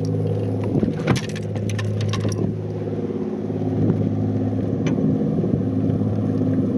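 Boat's outboard motor running steadily, with a few sharp clicks and knocks in the first couple of seconds.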